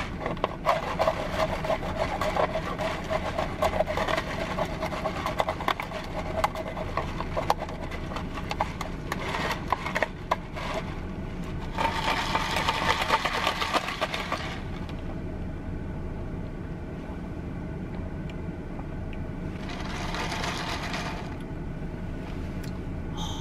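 Ice cubes rattling and the straw scraping and squeaking in a plastic cup as an iced drink is stirred, in many quick clicks for about ten seconds. Then two sips through the straw: a long one about twelve seconds in and a shorter one near twenty seconds.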